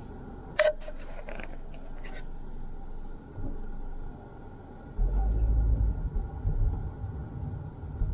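Car road and engine noise heard from inside the cabin: a low rumble that grows much louder about five seconds in as the car pulls away in traffic. A sharp click comes about half a second in, followed by a few lighter clicks.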